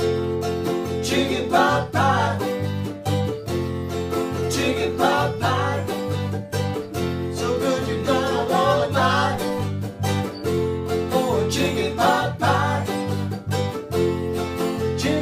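A band playing a country-style song on guitars, with a steady bass line and a wavering melody line on top.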